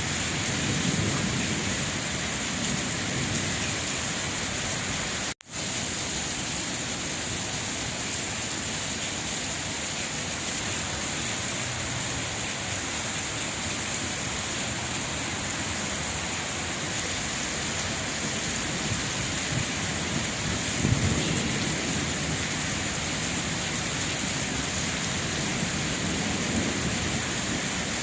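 Steady heavy rain, an even hiss of falling water, with a few low rumbles swelling up now and then. The sound cuts out for an instant about five seconds in.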